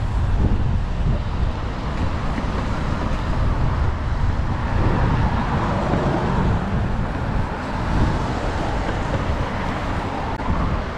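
Steady city street traffic noise, with cars driving past.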